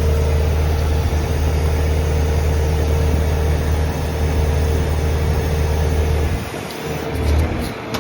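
Engine-powered driving machine running steadily with a low drone and a steady whine as it pushes the repair sleeve down. It cuts off about six and a half seconds in, with a brief low surge shortly after.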